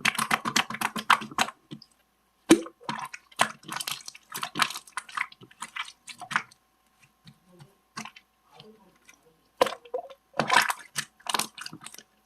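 Irregular wet squishing and clicking noises, in short clusters with brief pauses between.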